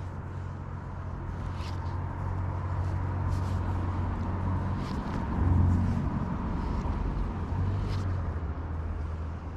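A low, steady engine drone that swells to its loudest about five and a half seconds in and then eases off, with a few light clicks scattered through it.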